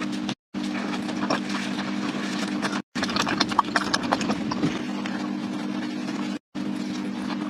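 Close-up eating sounds from roasted sweet potato skin: irregular crisp clicks and crackles of chewing and handling, busiest in the middle, over a steady low hum. The sound drops out completely three times for a moment.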